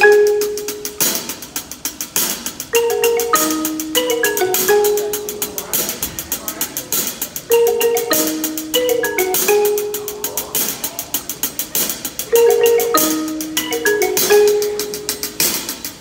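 Two marimbas played together with mallets, holding notes as rapid rolls in a short melodic phrase that repeats about every five seconds.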